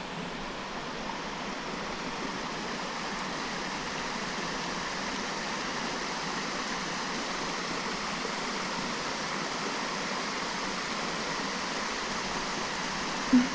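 Small stream's water running steadily, a constant rushing. A brief low sound near the end is louder than the water.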